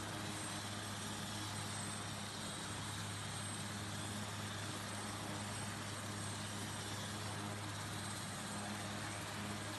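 Super Puma rescue helicopter idling on the ground with its rotors turning: a steady low rotor hum under dense engine noise, with a thin high turbine whistle.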